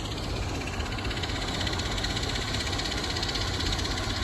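Medical transport helicopter running on a hospital rooftop helipad: a steady engine whine and rotor rumble heard from a distance.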